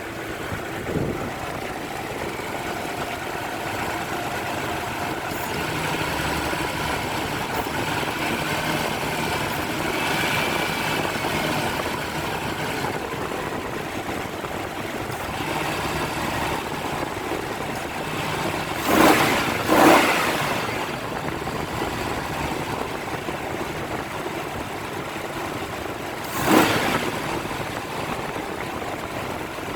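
Nissan VG33 3.3-litre V6 idling steadily. It is blipped briefly twice in quick succession about two-thirds of the way through and once more near the end. The owner suspects an intake vacuum leak.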